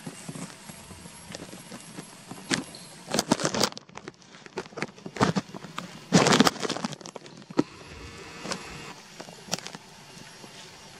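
Irregular bursts of rustling and crackling noise, scattered and uneven, loudest about six seconds in, over a steady outdoor background.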